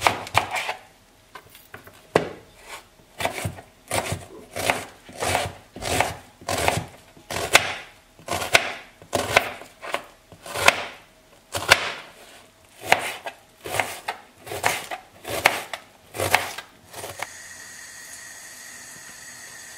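Kitchen knife chopping an onion finely on a plastic cutting board, in even strokes about two a second. The chopping stops near the end, leaving a steady faint hum.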